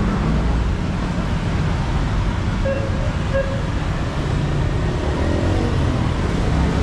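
Busy city road traffic with a steady rumble of passing cars and buses. Two short toots sound close together near the middle.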